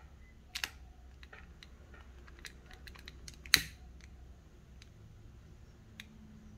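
Scattered sharp clicks and ticks from a long-neck butane utility lighter being worked, with a pair of clicks about half a second in and one much louder click about three and a half seconds in.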